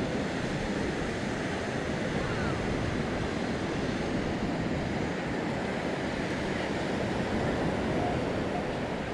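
Steady sea surf mixed with wind buffeting the microphone, an even rushing noise with no distinct events.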